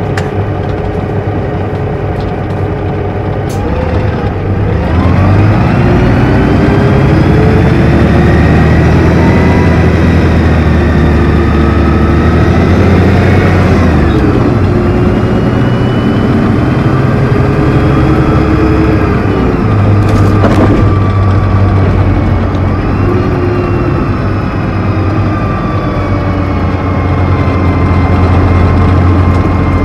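Neoplan N4426/3 Centroliner double-decker's Mercedes-Benz OM 501 LA V6 diesel and Voith DIWA 864.3E automatic gearbox, heard close up at the gearbox hatch, pulling under load. The gearbox whine and engine note grow louder and climb in pitch from about four seconds in, then fall sharply at a gear change about halfway through before climbing again.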